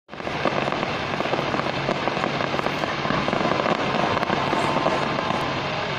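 Fireworks shooting off a tall tower, a dense, continuous crackling packed with many small pops.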